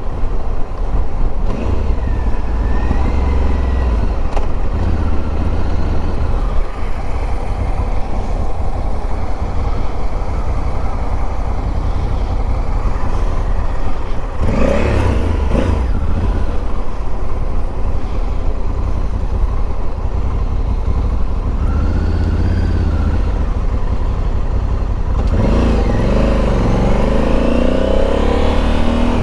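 Honda dual-sport motorcycle riding along, its engine running under a steady low rumble, revving up in pitch about halfway through and again near the end.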